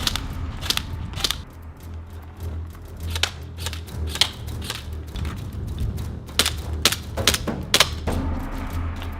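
Airsoft guns firing single shots: about a dozen sharp, clicky snaps, spaced irregularly and bunched in small groups.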